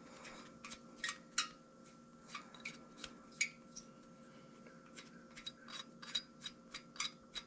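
Light metallic clicks and ticks as the bolts of a cam thrust plate on an LS engine block are turned in by hand: scattered at first, then a quicker, more even run of about three a second in the second half. A faint steady hum sits underneath.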